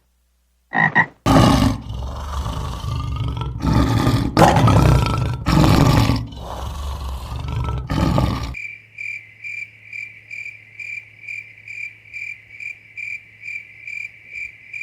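A large animal's loud, rough roaring calls, several in a row, then about halfway through they stop and an insect-like high chirping takes over, pulsing about three times a second over a faint low hum.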